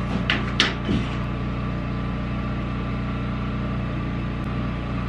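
Steady low machine hum, with two short clicks in the first second as a drawing compass is handled on the plywood.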